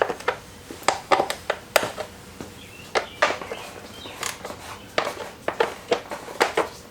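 Irregular metallic clinks and knocks, about a dozen sharp hits, from hand tools and engine parts being handled during an engine teardown.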